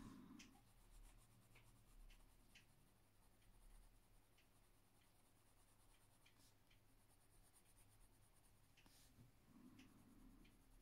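Faint scratching of a coloured pencil on paper: short, irregular shading strokes.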